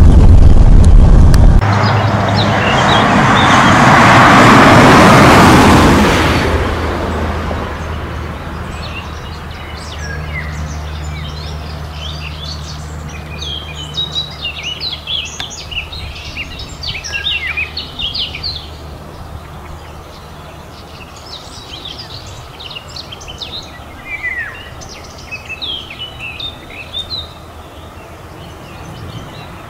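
Broad rushing noise that swells and fades over the first few seconds, like a vehicle passing on a road. Then many small birds chirping and singing in short quick calls, over a steady low hum.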